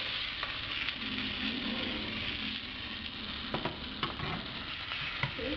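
Yellowtail snapper fillet sizzling steadily in hot butter in a nonstick frying pan, with a few light knocks of the pan and spatula about three and a half to five seconds in.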